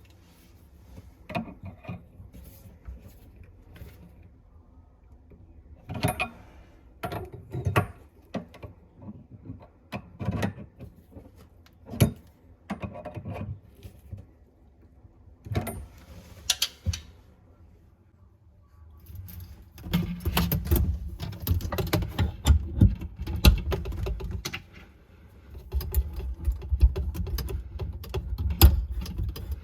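Hand tools and metal faucet parts being handled during a washbasin faucet replacement: scattered clicks and knocks, then two stretches of dense rattling clatter, the first about five seconds long and the second about three, in the second half.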